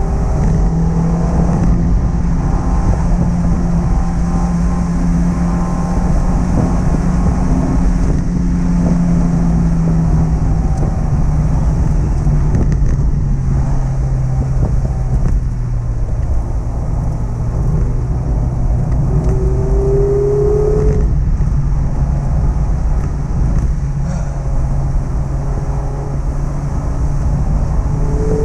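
Mazda MX-5 ND's 1.5-litre four-cylinder engine on its stock exhaust, heard from onboard while driving at fairly steady revs. Its note dips a little in pitch midway and briefly rises again later, over constant road noise.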